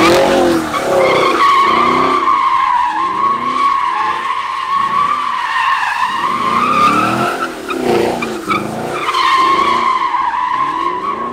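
Chevrolet Camaro spinning donuts: its rear tires squeal in one steady, high tone while the engine revs rise and fall over and over beneath it. The squeal eases off near the end as the car straightens out.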